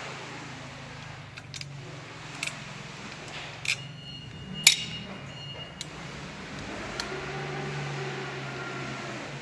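Sharp metal clinks and taps of a steel T-handle hex key and hex-head flange bolts as the drive-end bolts of an electric motor are backed out. The loudest clink, about halfway through, rings briefly. A steady low hum runs underneath.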